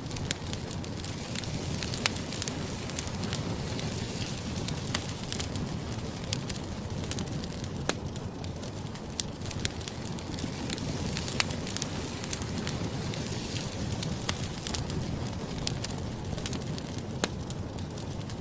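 Food frying in a hot pan: a steady sizzle with many sharp, irregular crackles and pops.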